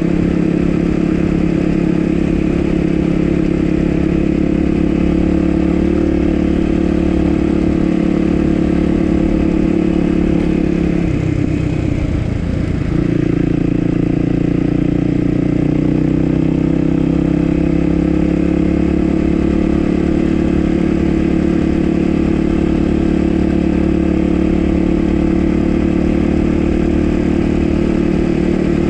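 Dual-sport dirt bike engine running steadily under way, its pitch dipping briefly near the middle and then climbing back.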